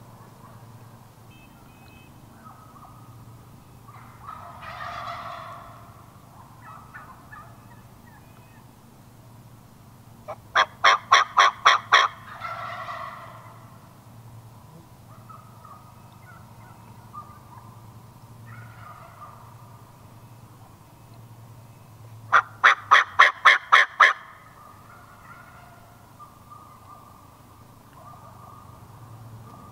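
Wild turkeys calling: two loud runs of about eight quick, evenly spaced notes, about eleven and twenty-three seconds in, with softer, quieter turkey calls between them.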